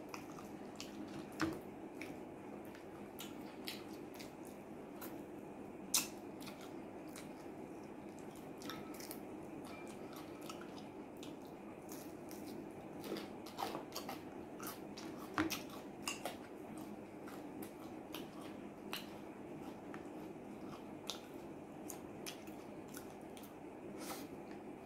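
Close-up eating sounds of a man eating fried chicken with his hands: chewing with scattered wet smacks and sharp clicks from mouth and fingers, and a couple of louder snaps. A steady low hum runs underneath.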